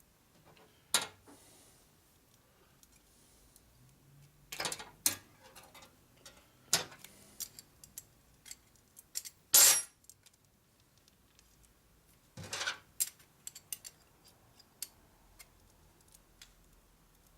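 Irregular clinks, taps and knocks of small metal parts and hand tools being handled on a workbench, with one sharp, louder knock about ten seconds in.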